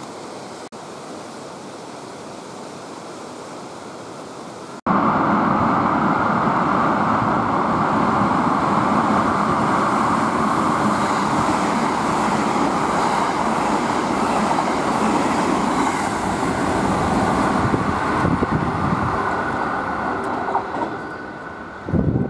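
Steady background noise, then, after a sudden cut about five seconds in, an express train passing through the station at speed without stopping: a loud, steady roar of the train on the rails that eases off near the end.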